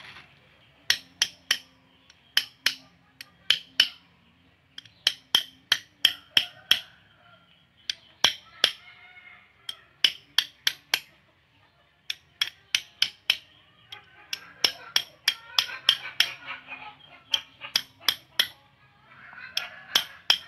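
Small metal chainsaw parts and hand tools clicking and tapping together as they are handled, sharp clicks coming in quick runs of two to five.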